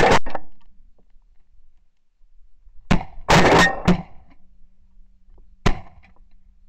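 Shotgun blasts from a goose hunting party: a shot at the start, a quick volley of several shots about three seconds in, and one more sharp shot near the end.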